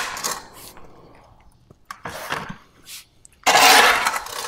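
A flat shovel scraping compost across a concrete floor: a few short scrapes, then a longer, louder scrape about three and a half seconds in.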